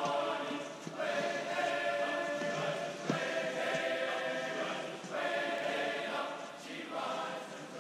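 Background music: a choir singing long, held phrases, each a second or two long with short breaks between them.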